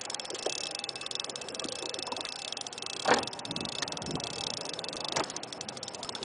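Boat motor running steadily under wind and water noise, with a sharp knock about three seconds in and a smaller one about five seconds in.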